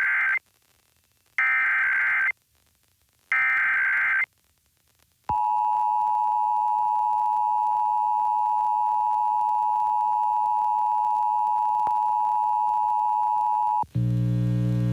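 Emergency Alert System test tones on a radio broadcast. First come three short bursts of the SAME header data, a raspy digital screech about a second each with gaps between. Then the steady two-tone EAS attention signal starts about five seconds in and holds for roughly eight and a half seconds, and a low hum takes over near the end.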